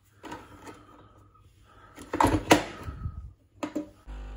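Plastic knocks and a clack as a creamer pod goes into a Bosch Tassimo pod coffee machine and its lid is shut, two light clicks a second later, then the machine starting up with a steady hum near the end.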